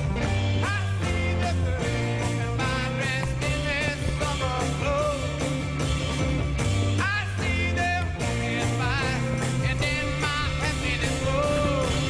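Rock music soundtrack with a singing voice, guitar, bass and a steady drum beat.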